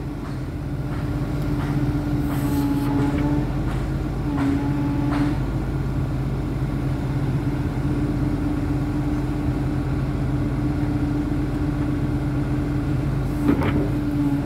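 Volvo EC210BLC excavator running steadily, with a constant drone from its hydraulic pump that the crew put down to low hydraulic oil.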